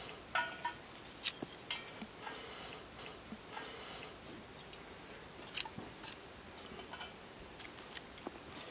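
A knife slicing garlic cloves held in the hand, making irregular small crisp clicks, a dozen or so, with the slices dropping into a clay pot of cubed eggplant.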